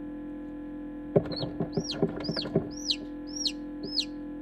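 Newly hatched chick peeping: six short, high calls that each rise and fall, starting a little after a sharp knock about a second in, with a few soft knocks among the first calls. A steady electrical hum runs beneath.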